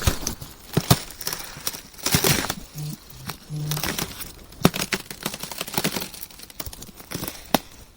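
Ice cracking: irregular sharp snaps mixed with short stretches of crackling and crunching.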